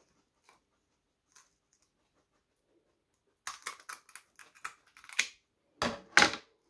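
Kitchen scissors snipping through the belly of a perch: a run of short snips, then two louder snaps near the end.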